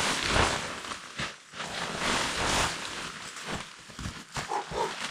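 Tent fabric rustling and swishing in uneven surges as the tent is handled and pitched. A brief pitched sound comes near the end.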